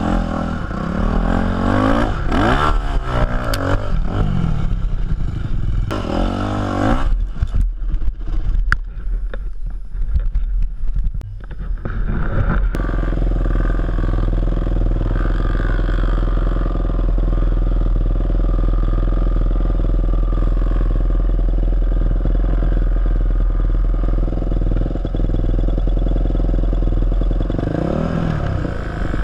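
Yamaha 250 dirt bike engine revving in rising and falling surges. About seven seconds in it drops away amid clattering knocks. From about thirteen seconds it runs steadily at idle, with a short rev near the end.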